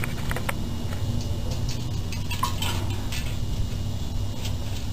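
Light taps and clinks of a raccoon's paws against a metal tub of water as it fishes in it, busiest about halfway through, over a steady low hum.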